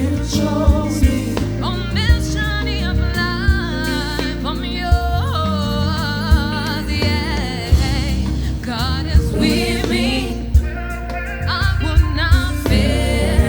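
Gospel song: an ornamented, wavering lead vocal over a band with sustained bass and punchy drum hits.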